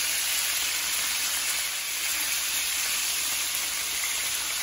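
Beef tenderloin steaks searing on high heat in a cast-iron skillet, sizzling steadily in olive oil and ghee.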